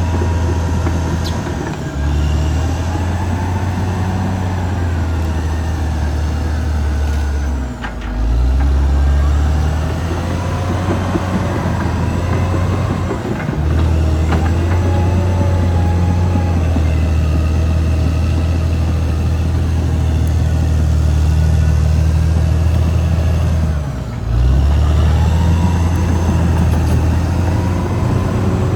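Caterpillar D6R XL bulldozer's diesel engine running loud and steady while working, with a wavering higher whine over the low drone. The engine sound dips briefly three times and then picks up again.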